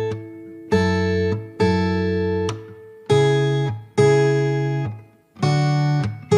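Background music: acoustic guitar strumming chords, about one strum a second, between sung lines of a pop song.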